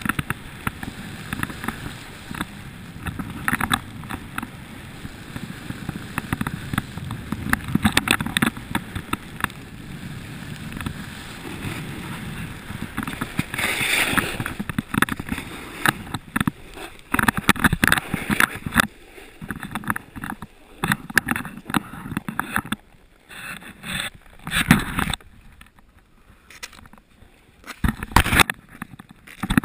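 Snowboard sliding and scraping down a hard-packed, groomed slope, a dense rushing scrape full of small knocks and rustles against the body-worn microphone. In the second half the scraping breaks up into separate scuffs and knocks with short lulls as the board slows on the flat.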